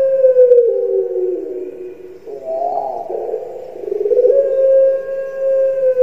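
Puter pelung dove (ringneck or Barbary dove) cooing, its characteristic drawn-out 'kuk gerukkk kwokkk' call. A long held coo slides down into a rolling, stepping descent, a short rougher note follows in the middle, and a second long coo begins about four seconds in and starts falling near the end.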